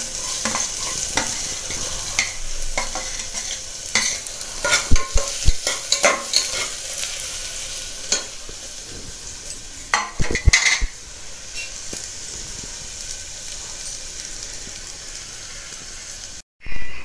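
Chopped onion sizzling in hot oil in an aluminium pressure cooker, while a steel spatula stirs it, scraping and clicking against the pot. A few louder knocks of the spatula on the pot about five and ten seconds in.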